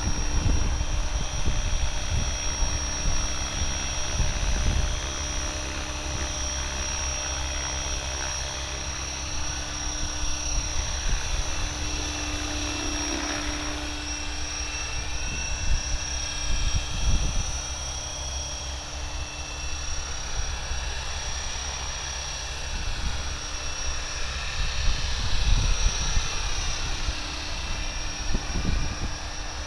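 Align T-Rex 550E electric RC helicopter in flight: a steady high motor and gear whine over the rotor hum, sweeping in pitch as it passes about halfway in. Wind gusts buffet the microphone.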